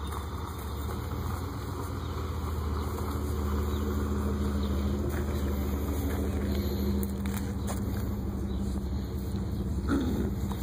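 An engine idling steadily, a low hum with an even pitch that grows a little louder over the first few seconds.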